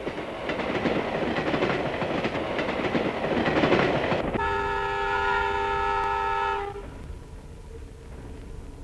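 Steam train on the move, a loud rushing noise for about four seconds. Then the steam locomotive's whistle blows one long steady blast of about two and a half seconds, and a quieter low rumble follows.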